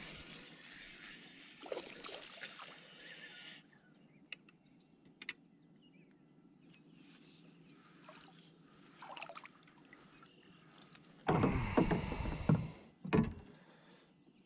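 Spinning reel cranked for the first few seconds, a steady whirring, as a hooked bass is reeled in. Near the end comes a loud burst of splashing and thrashing as the fish is lifted out of the water, then a single knock against the kayak.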